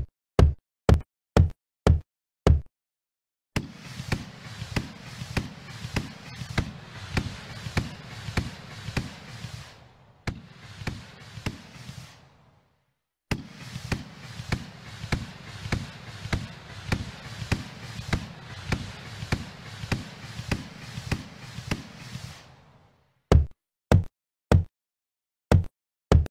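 Fireworks sound effects from a Finale Fireworks display simulation: a run of sharp single bangs, then two long stretches of rapid crackling and popping over a steady hiss with a brief silence between them, and a few more single bangs near the end.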